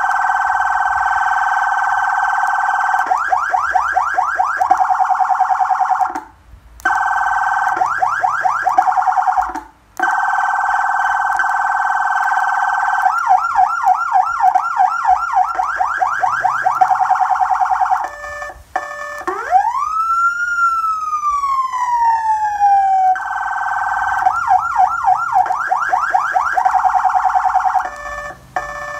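Electronic emergency-vehicle siren from a siren amplifier, switching several times between a steady blaring tone and a fast yelp, with two brief cut-offs. About two-thirds in it gives one slow wail that rises and falls, then goes back to the blare and yelp.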